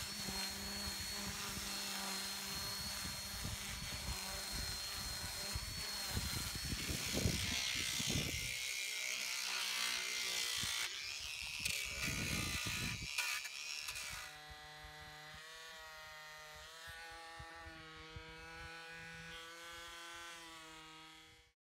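Cordless Craftsman C3 19.2-volt power tools sanding carved wood. For the first several seconds a drill spins a flap sander with a steady whine. Then a multi-tool sands with a round disc, making rougher scratching bursts, and near the end it switches to a triangular detail sanding pad, giving a quieter, steady buzz.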